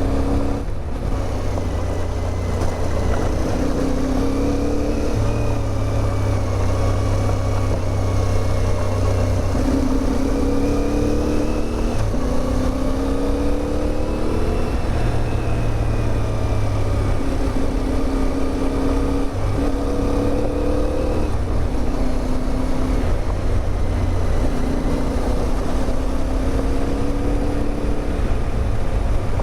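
CFMOTO 450MT's parallel-twin engine running under way, its pitch climbing and then dropping again and again as the bike accelerates and shifts gear, over a steady rush of wind noise.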